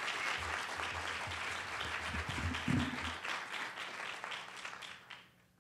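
Audience applauding, a dense patter of many hands clapping that fades and stops about five seconds in.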